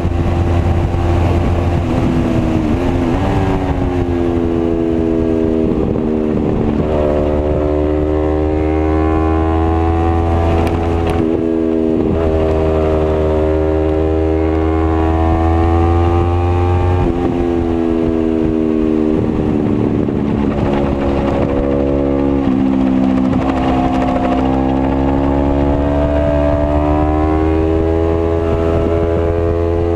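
Sport motorcycle engine at track speed, the revs climbing and falling over and over as the bike is shifted up through the gears and slowed for corners, with a few sharp drops where the pitch breaks off and builds again.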